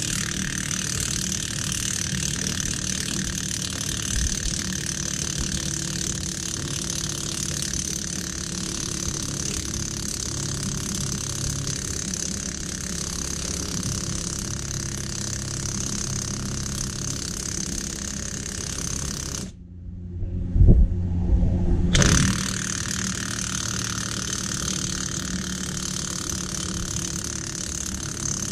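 Impact wrench hammering steadily on the screw of a bearing press tool, drawing a press-in front wheel bearing into the steering knuckle. About 19 seconds in it stops for a couple of seconds, with a few heavy knocks, then starts again.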